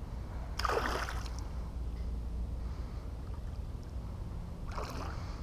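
A hooked jack crevalle splashing at the surface: one short splash about half a second in and another near the end, over a steady low rumble.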